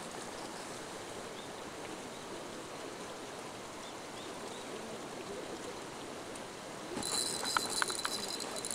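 Steady rush of running water. Near the end a louder, high-pitched whir starts, with a cluster of short ticks.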